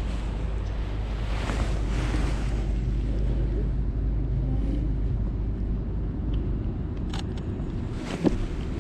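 Low, steady rumble of wind and loose clothing rubbing over a chest-mounted GoPro's microphone as its wearer walks, with a couple of sharp clicks near the end.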